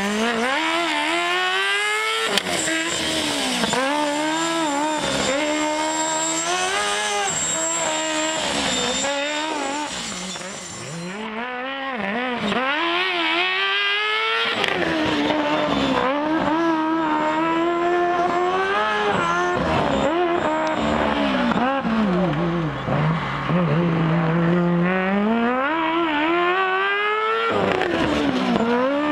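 A Formula SAE race car's engine revving up and down again and again as the car accelerates and slows through a cone course. Its pitch climbs and drops many times, with a longer steady low stretch a little after the middle.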